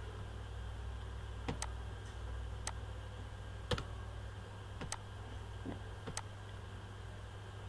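Computer mouse button clicks, about seven sharp clicks at uneven intervals, over a steady low electrical hum.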